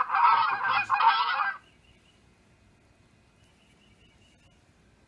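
Recorded duck calls played back as a sound effect: a loud, dense run of quacking that cuts off about a second and a half in, followed by near silence.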